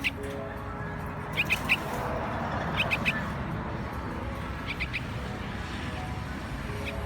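Baby birds cheeping: short, high chirps in quick groups of two or three, a group every second and a half or so.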